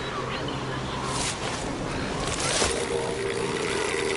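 Southern elephant seal colony on the shore: a steady wash of surf and wind, broken by two loud, rasping seal bellows about a second and two and a half seconds in, with faint kelp gull calls.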